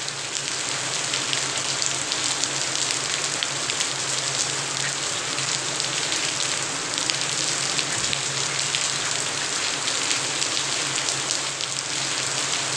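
Steady rain falling on a wet, puddled concrete yard: an even hiss of rain with many fine pattering drops.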